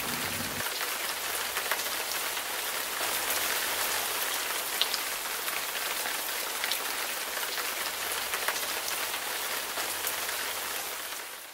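Steady rain falling, a dense patter of drops with now and then a louder single drop; it fades out near the end.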